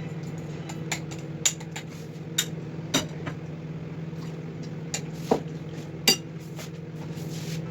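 Dishes and utensils clinking and clattering about ten times at uneven intervals, over the steady hum of a running kitchen appliance.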